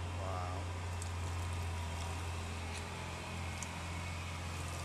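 Steady low hum under a hiss of background noise, with a brief voice-like call just after the start.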